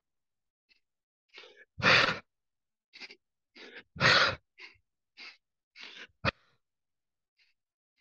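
Close-miked breath-of-joy yoga breathing: short sniffs in through the nose, then a forceful huff out of the mouth, the loud exhales coming twice about two seconds apart. A sharp knock about six seconds in, then quiet.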